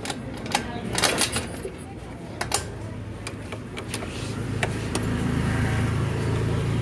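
Yamaha Ray BS6 scooter's single-cylinder engine idling, settling into a steady, louder hum from about halfway in, after a few sharp clicks of handling. The engine keeps running at slow idle, which the mechanic links to the loose earth wire.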